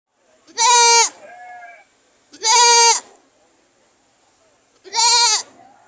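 Goat bleating: three loud, high calls about two seconds apart, each about half a second long and falling in pitch at the end, with a fainter bleat just after the first.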